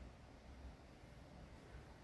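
Near silence, with only a faint low hum.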